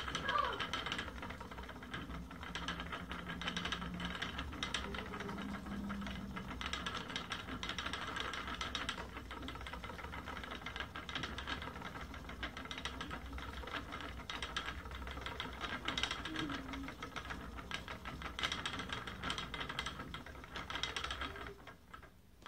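Wooden treadle spinning wheel running while yarn is plied: a steady rattle of fine clicks from the turning drive wheel, treadle and whirling flyer. It dies away just before the end as the wheel comes to a stop.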